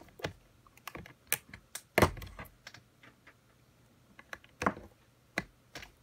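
Irregular clicks and knocks of a USB cable being plugged into a FrSky Taranis Q X7 radio transmitter and the radio being handled, with one louder knock about two seconds in.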